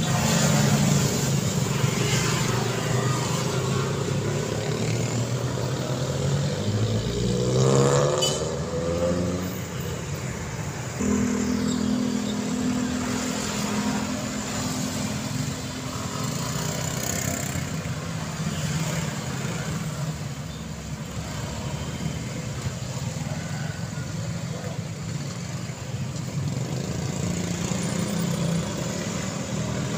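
Street traffic: cars, a small truck and motor scooters passing with their engines running. About seven seconds in, one engine rises in pitch as it accelerates, and from about eleven seconds a steadier engine hum holds for several seconds.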